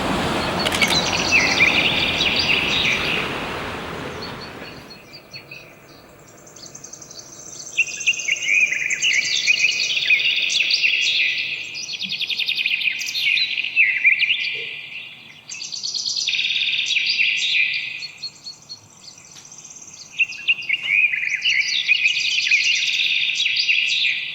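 A songbird singing long, quick-changing warbling phrases, four of them with short pauses between. For the first few seconds a steady rushing noise lies under the song, then stops.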